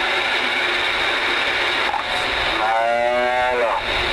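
Galaxy DX-2547 CB radio's receive audio: steady band static hiss from the speaker, with a drawn-out, voice-like call of about a second from another station breaking through past the middle, dropping in pitch at its end.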